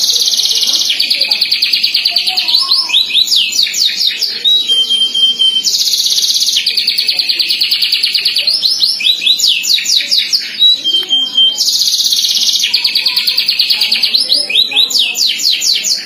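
Domestic canary singing a loud, continuous song of rapid trills and quick sweeping notes, the same sequence of phrases coming round about every six seconds.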